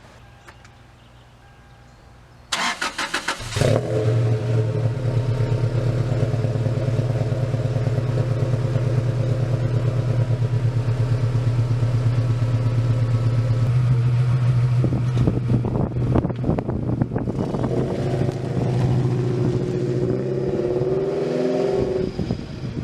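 1999 Toyota Tacoma engine cranked by the starter for about a second, then catching and settling into a steady idle. Its first start on a newly fitted Walbro 190 LPH fuel pump. In the second half the running becomes less even, with the pitch rising and falling a little.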